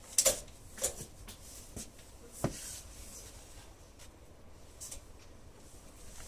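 Scattered light clicks and knocks of small objects being handled, with one sharper click about two and a half seconds in.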